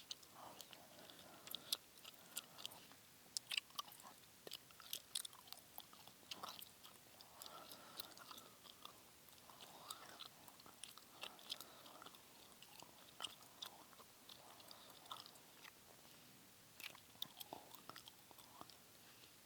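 Close-miked gum chewing: soft, irregular wet mouth clicks and smacks, several a second at times.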